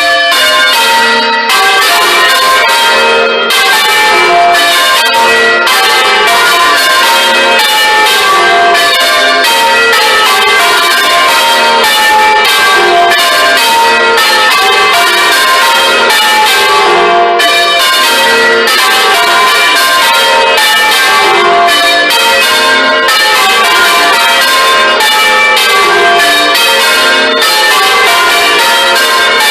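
A ring of six church bells (tenor in F) rung full-circle in turn, heard loud and close up in the belfry: a continuous stream of overlapping strikes, each ringing on. The ringing starts abruptly at the beginning.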